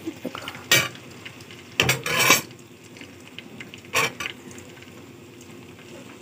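Metal kadhai and strainer clinking and scraping as hot ghee is poured off, over a faint steady sizzle of the hot ghee frothing in the strainer. Sharp clinks come about a second in, a cluster of them around two seconds, and one more near four seconds.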